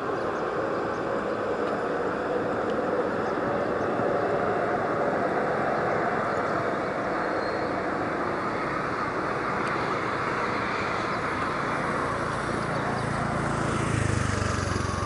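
Steady distant town and traffic noise, with a low engine rumble swelling near the end.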